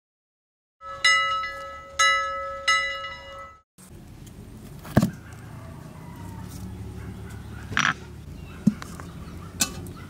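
A short jingle of three ringing chime notes, each struck sharply and fading. It is followed by outdoor background with a few sharp stone knocks as a flat stone grinding slab (sil) and its hand grinding stone are set down.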